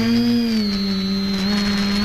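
X550 multicopter's electric motors and propellers running in flight, picked up by its onboard camera: a steady buzzing hum with a thin high whine above it. The pitch eases down slightly about half a second in as the throttle changes.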